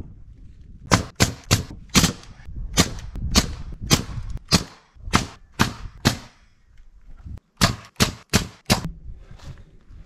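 Hammer blows: about fifteen sharp strikes at roughly half-second spacing, in two runs with a short pause between them.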